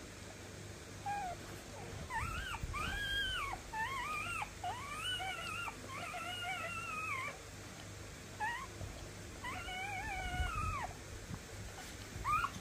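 Newborn puppies whimpering and squeaking while nursing: a run of short, high, arching cries, a pause of about a second, then another run of cries and one last squeak near the end.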